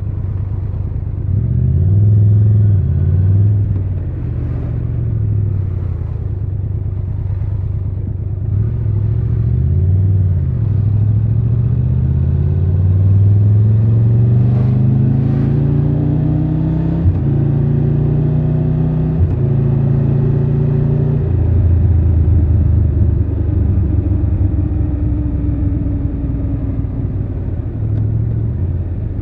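Triumph Tiger 1200 Rally Pro's three-cylinder engine heard from the rider's seat under way: a few short rises and falls in revs, then a long pull up through the revs with three quick upshifts past the middle, each dropping the pitch, before it settles into steady running.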